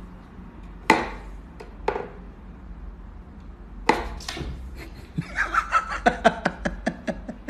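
Wooden knocks and clacks from a wooden whack-a-mole cat toy as its pegs are pushed and its pop-up balls are batted: a few single knocks in the first half, then a quick run of many clacks over the last two seconds or so.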